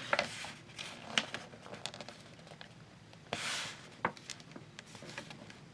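A sheet of paper being folded and creased by hand: soft taps and crinkles, with a short sliding rustle about three and a half seconds in.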